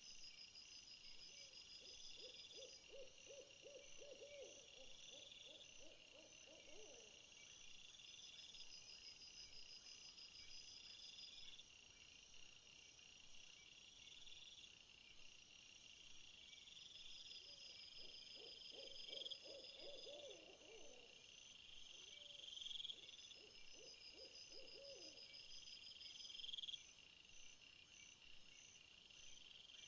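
Faint insect chorus of crickets trilling in short, regularly repeating phrases. Twice a lower, rapidly pulsed trill from another animal joins in for several seconds.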